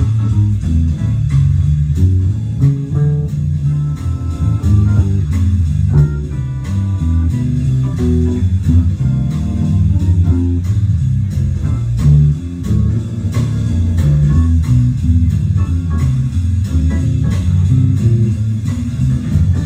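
Guitar music with a prominent bass line and a steady beat, in a bluesy style.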